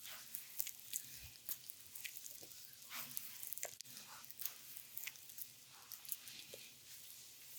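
Hands massaging an oiled belly: scattered wet squishes and small sticky clicks of palms sliding on slick skin.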